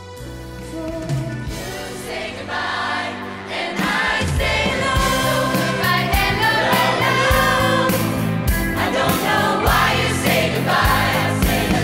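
Live song with band: a woman sings solo, then about four seconds in a large mixed youth choir comes in and the music grows louder over a steady drum beat.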